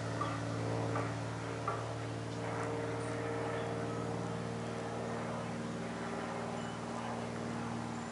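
Light single-engine propeller plane, a Cessna, droning steadily as it flies high overhead: an even hum with several overtones.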